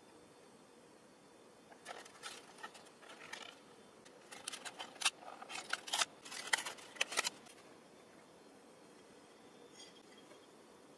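A clear plastic dessert cup being opened by hand, its sealed film lid peeled back: a run of crinkles, crackles and sharp plastic clicks that stops suddenly about seven seconds in.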